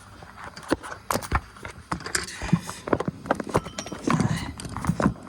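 Spice shaker of garlic powder being shaken and tapped over raw meat: a run of irregular plastic clicks and knocks.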